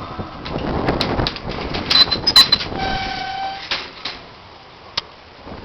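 A single steady horn note, about a second long, over a rumbling noise that dies down after it.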